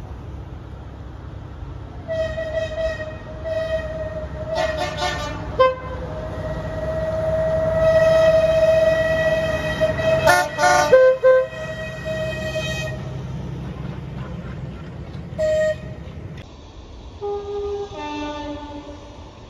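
Small diesel shunting locomotives running past with their engines rumbling, sounding their horns again and again: short toots from about two seconds in, a long held blast, then sharp blasts. The engine rumble fades about three seconds before the end, and further horn notes come from farther off near the end.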